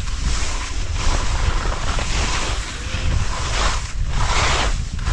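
Skis hissing and scraping through slushy spring snow, surging with each turn about once a second, over a low rumble of wind on the microphone.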